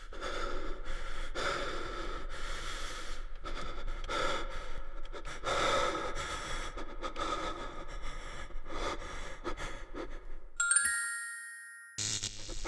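Dark, noisy intro music and sound design for a horror film, pulsing unevenly over a steady low hum. About ten and a half seconds in it stops and gives way to a single bright ringing strike that fades away. A new noisy sound starts just before the end.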